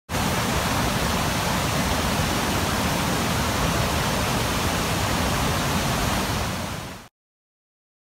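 Fast, swollen river water rushing over the rocky lip of a waterfall: a loud, steady rush of water. It cuts off abruptly about seven seconds in.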